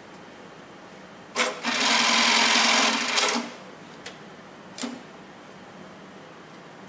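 Siruba BT290 industrial sewing machine running one short stitching cycle of about two seconds, starting with a click and stopping abruptly. Two separate clicks follow.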